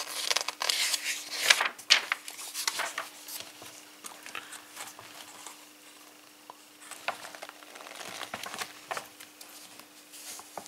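Pages of a printed paper catalogue being handled and turned, with irregular rustling and crinkling of the paper. The rustling is heaviest in the first three seconds and comes again around seven to nine seconds in.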